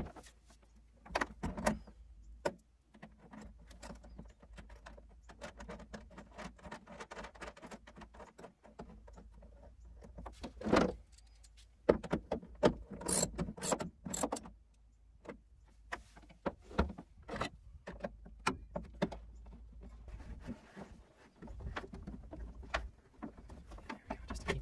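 Scattered metallic clicks, clinks and knocks of a hand tool and cable hardware as a red positive cable is fitted to a battery terminal and tightened down. A louder knock comes near the middle, followed by a quick run of sharp clicks.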